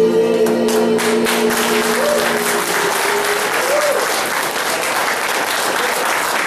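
Audience applauding, a dense crackle of many hands clapping. It starts just as the song's last held note is still sounding, and that note dies away about two and a half seconds in.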